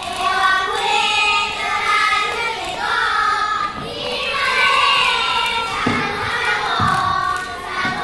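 A group of young children singing together, with a few dull low thumps near the end.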